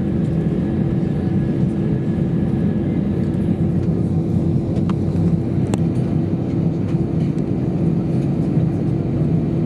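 Steady low rumble of an Airbus A320-214's CFM56-5B jet engines and airframe heard inside the passenger cabin, with a constant droning hum on top. Two faint clicks come about five and six seconds in.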